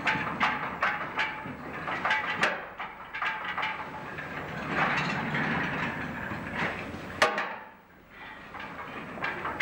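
Loaded kiln car rolling on its rails as it is pushed into the kiln, with irregular clattering and clacking and a sharp knock about seven seconds in.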